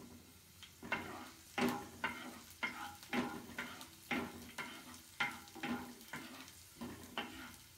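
Chopped green chillies and garlic sizzling in hot coconut oil in a frying pan, stirred in regular strokes about two a second.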